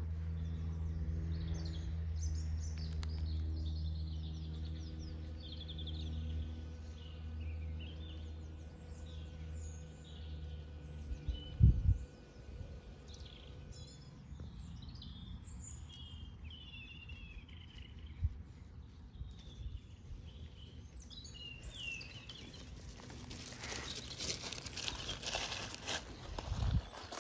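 Honeybee buzzing in a steady hum through the first half, cut short by a sharp knock about halfway in. Small birds chirp and sing throughout, and rustling sets in near the end.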